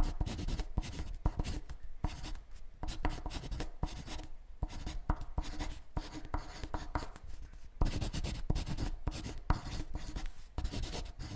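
Pen-on-paper writing sound effect: quick, irregular scratching strokes with short pauses between them, cutting off abruptly at the end.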